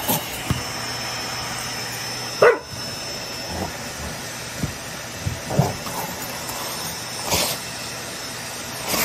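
Dogs yipping and barking a few times while they bite and tug at a vacuum cleaner wand. The loudest is a sharp yelp falling in pitch about two and a half seconds in, and a couple of sharp knocks come near the end.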